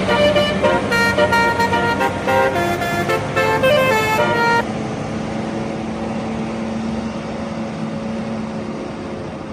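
Bus telolet horn playing a quick tune of changing tones, several sounding together, which stops about four and a half seconds in. A steady engine and road noise with a low hum is left after it.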